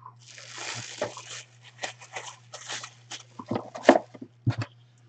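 Clear plastic bag around a baseball crinkling as it is handled and pushed into a small white cardboard box, with a few sharp cardboard knocks and taps a little past the middle. A steady low electrical hum runs underneath.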